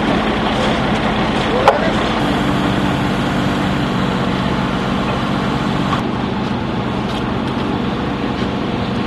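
Crane engine running steadily while a timber beam hangs from it, its hum shifting slightly about two seconds in. A single sharp knock comes just before that.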